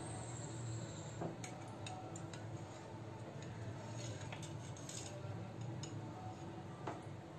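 Faint, scattered clicks and light taps of a metal cake server against a ceramic plate as a slice of cake is set down and the server is slid out, over a low steady hum.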